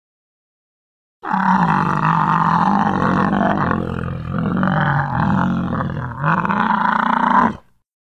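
Megatherium (giant ground sloth) sound effect, a made-up creature voice since the animal is extinct: one long, rough call that starts about a second in, wavers up and down in pitch, and cuts off suddenly near the end.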